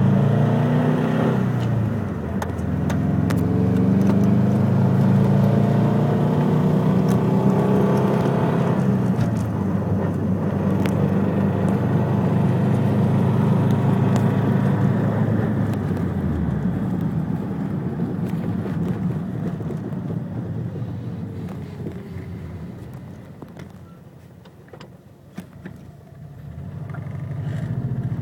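Subaru WRX STi's turbocharged flat-four engine revving, its pitch rising and falling, with a knocking noise from the front of the car that the owner hears past 3,000 rpm. The engine sound dies down to its quietest about 24 seconds in, then comes back.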